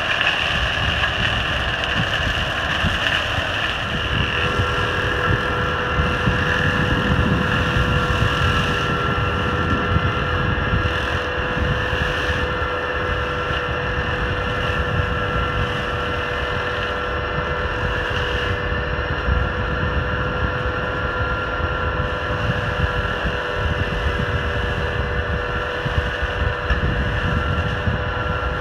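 Valtra N111 tractor engine and its Spearhead hedge trimmer's flail head running steadily while cutting a hedge, with a few steady tones over a low rumble. Some wind on the microphone.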